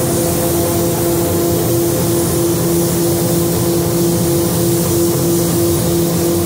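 Hiss of a gravity-feed air spray gun laying red base coat, over the steady hum of the paint booth's ventilation, which carries a faint, slightly pulsing tone.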